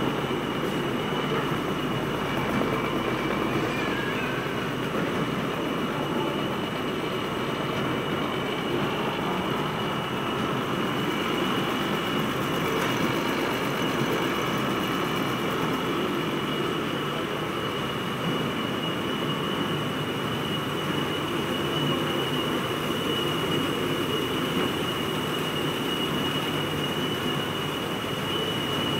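Rolam GS-800 automatic folder gluer for 4- and 6-corner corrugated boxes running: a steady mechanical clatter and hum of its feeder, belts and rollers, with a steady high whine throughout.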